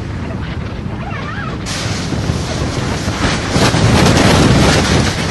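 Strong wind buffeting the microphone. A low rumble at first, then it cuts suddenly about two seconds in to a much louder, fuller rush of wind that keeps swelling.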